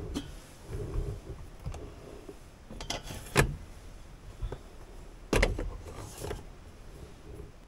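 Handling of an Omnia stovetop oven: its metal lid lifted off and silicone baking forms fitted into the metal pan, with soft rubbing and small knocks. Two sharper knocks come about three and a half and five and a half seconds in.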